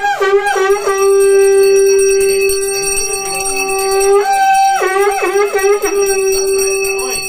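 Conch shell (shankha) blown in long steady notes, its pitch wavering down and back up in short dips near the start and again about five seconds in, as in the conch-sounding of an aarati. A bell rings behind it.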